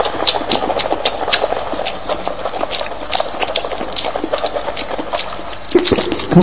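Eating sounds from several mouths layered together: chewing and smacking clicks in a quick, uneven run of several a second, with a brief low hum near the end.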